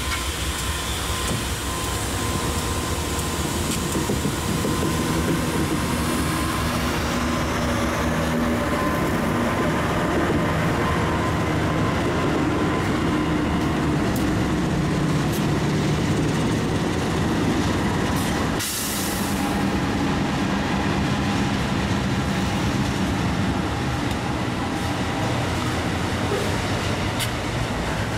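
Diesel freight locomotives passing close by, their engines running steadily, followed by the wagons rolling along the rails.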